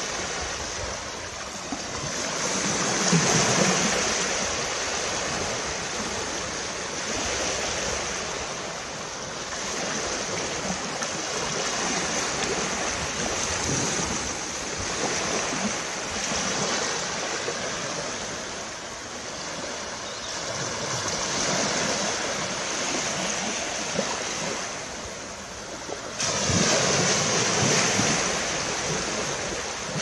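Small waves breaking and washing up a sandy beach: a steady hiss of surf that swells and fades every few seconds, loudest near the end.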